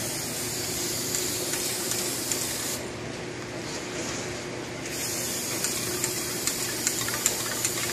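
Aerosol spray-paint can hissing as black paint goes onto a car battery case, in two long bursts with a pause of about two seconds in the middle.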